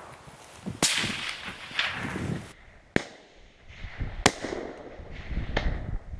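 Rifle shots: a loud crack with a long fading echo about a second in, then three sharper, shorter cracks about a second and a half apart.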